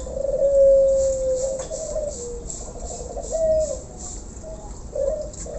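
Caged doves cooing: a few drawn-out low coos, the longest just after the start, over a steady high hiss.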